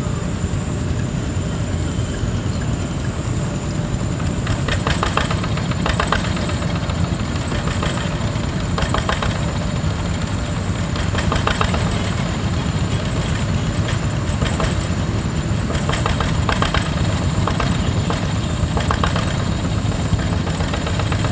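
Single-cylinder Yanmar diesel of a Quick G1000 hand tractor running steadily, with repeated louder bursts every couple of seconds from about four seconds in as it is throttled up working through mud.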